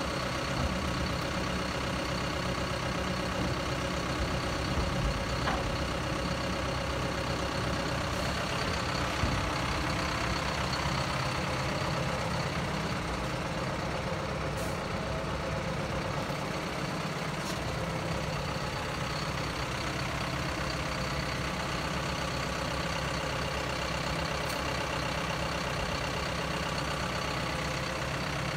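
Heavy diesel engine idling steadily, with a few faint ticks.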